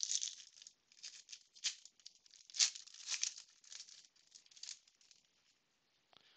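Foil wrapper of a trading card pack crinkling in quick irregular bursts as it is torn open and the cards are pulled out.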